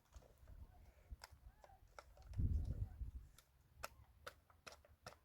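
Irregular sharp clicks and light knocks, with a louder low muffled thud or rumble about two and a half seconds in.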